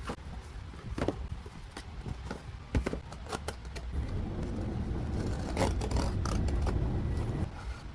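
Scattered light clicks and taps of small objects being handled, over a steady low rumble.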